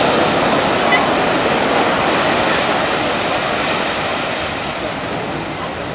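Sea water washing and lapping, a steady rushing noise that eases slightly toward the end.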